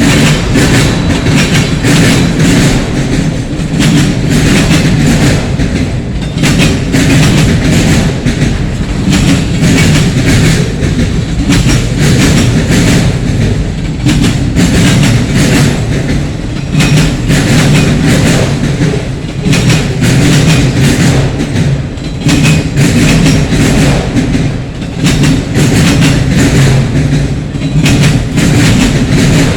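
Freight train cars rolling past at close range, their wheels clacking rapidly and steadily over the rail joints beneath a heavy rumble.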